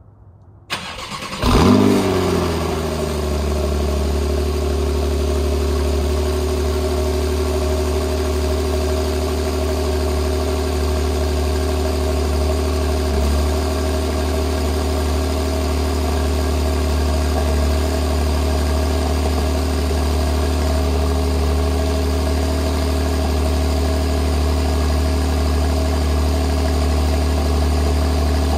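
2019 Porsche 911 Carrera T's 3.0-litre twin-turbo flat-six cold-starting: the starter cranks briefly about a second in, the engine catches with a loud flare of revs that drops back within a couple of seconds, then runs at a steady cold idle.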